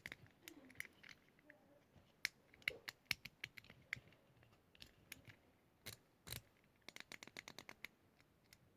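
Faint clicking of the plastic buttons on a remote-control fidget toy, pressed in quick runs of about ten clicks a second with a few louder single clicks between.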